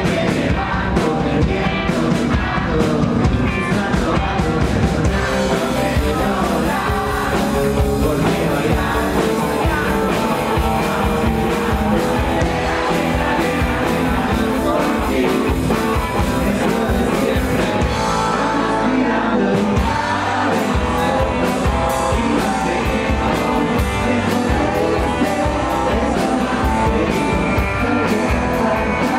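Live rock band playing with a male lead vocalist singing over guitars and drums. About eighteen seconds in the band thins out for roughly two seconds, then comes back in full.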